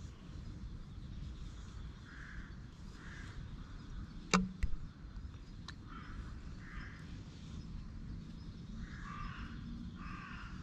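Soft rustling of a hand stroking a black cat's fur, coming in short, irregular strokes, with one sharp click about four seconds in.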